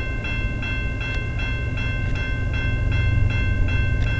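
Railway level-crossing warning bell ringing in a steady rhythm of about three strokes a second, sounded because a train is approaching the crossing. A low rumble under it grows louder near the end.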